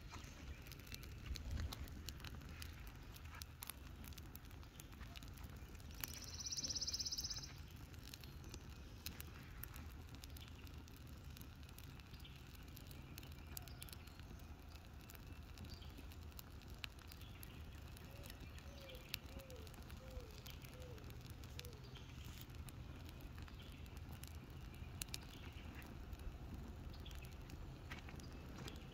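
A welcome mat burning on a charred tree stump, with faint, irregular crackling and popping from the flames over a low rumble. A brief high hiss comes about six seconds in, and five short falling chirps come past the middle.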